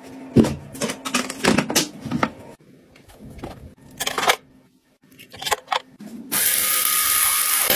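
Irregular plastic clicks and knocks as a collapsible mini washing machine is handled and folded, then a few scattered clicks. About six seconds in, a small ultrasonic cleaner starts a steady, loud buzzing hiss.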